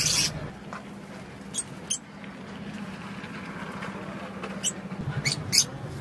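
Alexandrine parakeet giving short, sharp, high-pitched squeaks: a brief louder call at the start, then about five quick squeaks, two of them close together near the end.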